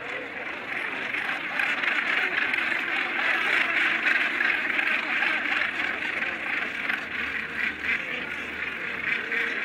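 A large nesting colony of northern gannets calling all at once: a steady din of many overlapping calls.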